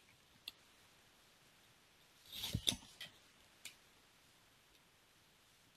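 A few faint clicks of a computer mouse, with a short louder rustle and click about two and a half seconds in, over quiet room tone.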